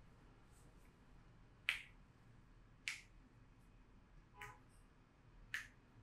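Sharp smacks from a back massage: three crisp, snap-like hits, with a softer knock that rings slightly between the last two.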